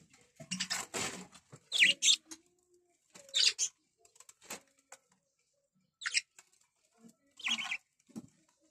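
Caged budgerigars giving short, separate chirps a second or two apart, with a few brief rustles in between.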